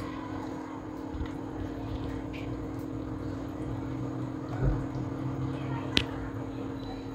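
Cake batter being stirred in a bowl as milk is added a little at a time: light scattered clicks, a low knock a little past halfway and a sharp click near the end, over a steady low hum.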